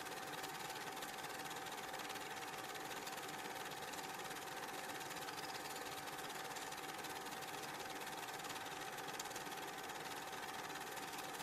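Steady mechanical whirr and hiss at an even level, with a constant hum tone running through it and no commentary or crowd sound to pick out.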